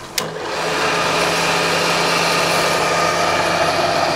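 A sharp click from the Bridgeport milling machine's head switch, then its 1 hp three-phase motor and spindle spin up over about half a second and run steadily.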